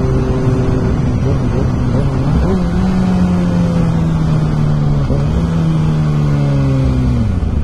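Kawasaki ZX6R's inline-four engine running loud through an exhaust with its silencer insert out. The revs rise sharply about two and a half seconds in and hold with a brief blip midway, then drop away near the end as the throttle closes.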